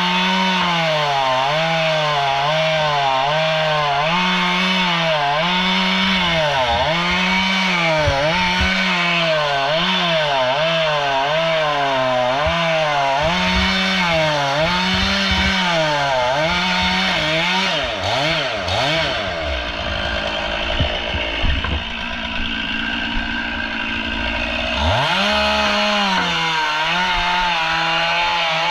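Stihl two-stroke chainsaw cutting through a palm trunk at the stump, its engine note dipping and recovering about once a second as the chain bites under load. About two-thirds through it drops to a low idle for several seconds, then revs back up near the end.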